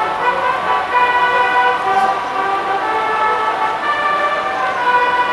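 Car horns of a slow-moving motorcade honking, several overlapping and held without a break.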